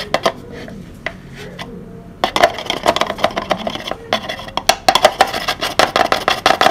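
A clear plastic bottle crackling and clicking as a hand grips and works it in a car's engine bay. A few scattered clicks come first, then from about two seconds in a dense, fast run of clicks, about six a second, with a short pause in the middle.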